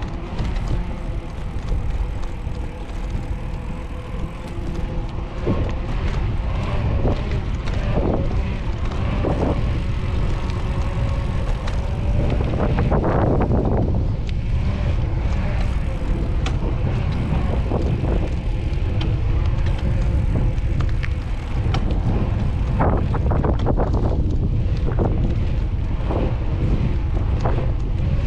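Wind buffeting the camera microphone as a bicycle rides along a paved path, a steady low rumble, with scattered light clicks and knocks from the moving bike.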